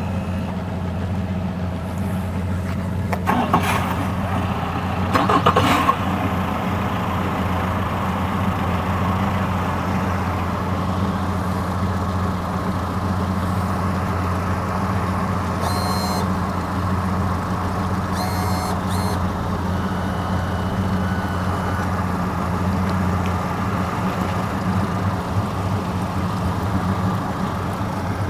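Twin Yamaha 150 four-stroke outboards idling steadily on their first run after the boat sank and the engines were flushed out. Two short clattering noises cut in briefly a few seconds in.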